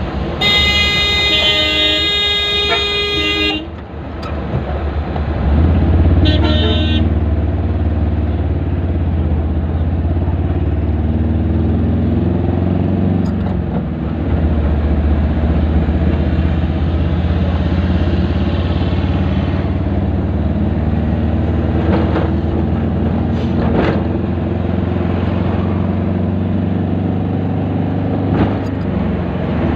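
A vehicle horn sounds for about three seconds, then a second, shorter horn toot comes about six seconds in, over the steady low rumble of a motor vehicle in traffic.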